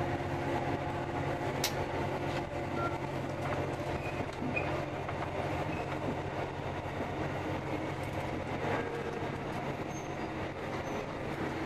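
Steady running noise inside a locomotive-hauled passenger carriage of a moving train: the rumble of the wheels on the rails under a low hum, with a sharp click about two seconds in.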